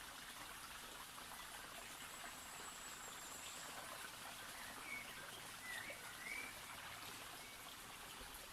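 Faint, steady rush of flowing water, with a few short bird chirps a little past the middle.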